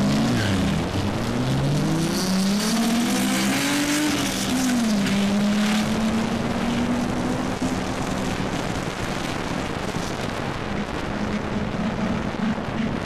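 A VW and a Honda S2000 launching in a drag race and accelerating hard away down the strip. Engine pitch climbs and drops back at each gear change in the first few seconds, then runs steadier and fades slightly as the cars draw away.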